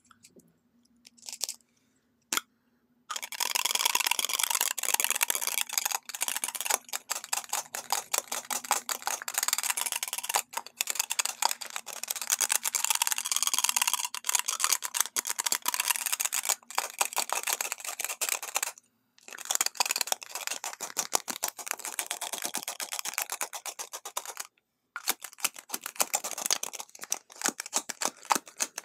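Lipstick tubes handled close to the microphone: long fingernails tapping and scratching on the tubes in rapid clicks. A few clicks at first, then a dense, continuous run of tapping from about three seconds in, with two brief pauses.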